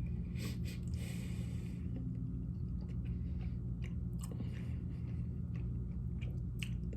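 A man chewing a mouthful of slimy pasta close to the microphone: scattered soft wet smacks and clicks over a steady low hum.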